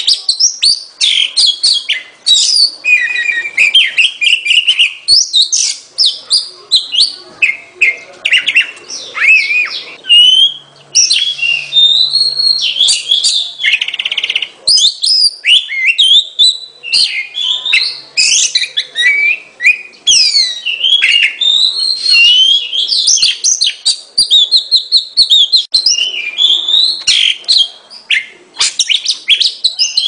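Oriental magpie robin singing: a fast, varied string of whistled phrases and chirps, many sliding up or down in pitch, going on with only brief gaps.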